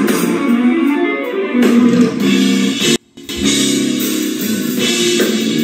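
Live instrumental band music: an electric guitar leads over keyboard and drums. The sound cuts out for a split second about three seconds in.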